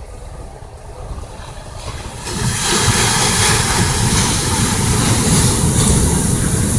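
Ocean surf: a wave breaks on the shore about two seconds in, and the loud rush of white water carries on after it.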